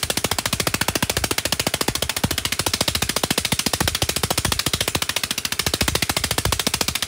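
Water-well drilling rig's machinery running, a rapid, even knocking that goes on without a break, with occasional heavier low thumps.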